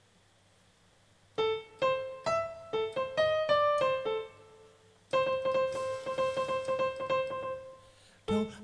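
Piano starting the next tune: after a short quiet, a run of single struck notes, then a chord held and left to ring for about three seconds before new notes begin near the end.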